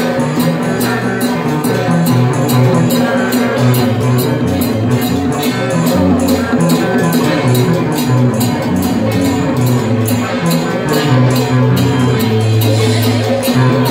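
Loud music played over a sound system, with a steady beat and a bass line that moves from note to note.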